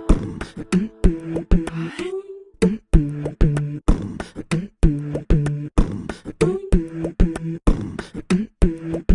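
Beatboxing music track: vocal percussion of sharp clicks and kick-like hits in a steady rhythm, several a second, with short hummed, bending vocal tones between them.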